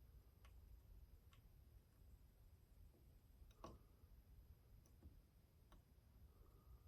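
Near silence over a low hum, with a few faint, scattered ticks and light taps from hand soldering on a circuit board, the clearest about three and a half seconds in.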